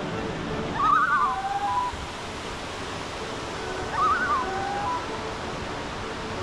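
Creek water rushing steadily, with a songbird singing the same short phrase twice: a quick wavering trill followed by a lower, held whistle.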